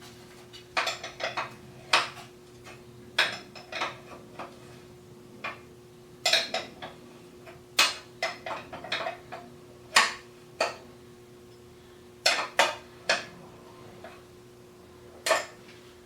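Irregular metal clinks and knocks of tools and parts being worked on a McLane edger's wheel and axle, over a faint steady hum.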